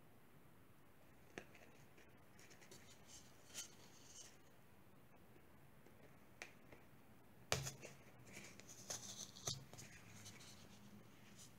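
Faint handling sounds of corn husk strips being folded and pinned onto a foam cone: a few soft clicks and rustles, with the sharpest click and a short run of rustling a little past halfway.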